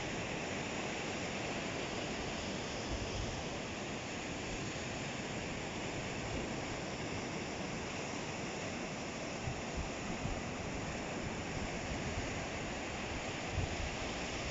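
Atlantic surf breaking and washing steadily on the shore, a continuous rush of sea noise. A few brief low bumps of wind on the microphone come in the second half.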